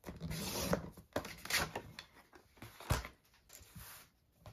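Sheet of patterned cardstock sliding and rustling as it is handled in a paper trimmer and pulled out onto a cutting mat, with a scraping stretch at the start and a couple of sharp taps later.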